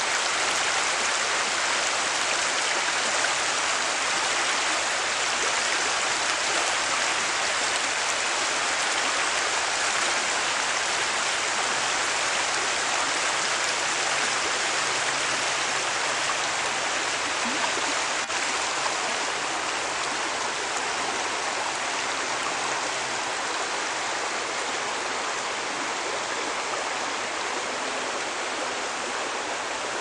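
River water rushing over rocks in shallow rapids: a steady, even wash that eases slightly in the second half.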